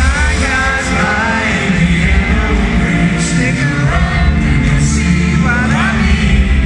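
Live pop-rock band playing with a male lead vocal, loud and steady; bass and drums come in together right at the start.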